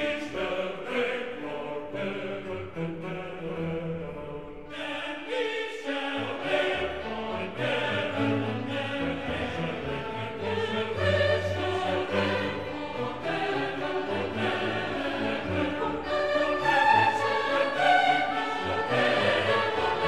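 Background music: a choir singing long held notes over orchestral accompaniment.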